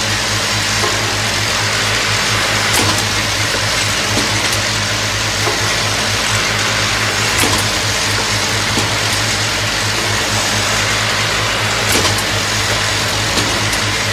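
Automatic rotary nail polish filling and capping machine running: a steady machine hum with a few sharp clicks from its moving mechanisms.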